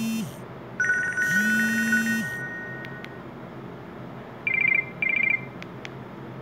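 Nokia 150 mobile phone playing Nokia E72 ringtones through its small speaker. About a second in comes a fast-trilling, two-note ring tone with a low buzz underneath, which fades out. Near the end come two short pulsed beeps.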